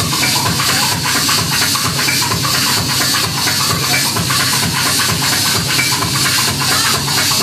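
Loud, noisy music: a dense hiss with a steady run of regular clicks and a low, busy rumble underneath.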